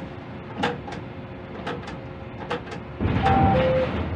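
Quay crane operator's cab: several sharp clicks and knocks. About three seconds in, a louder rush of noise lasting about a second, with two short beeps, the first higher than the second.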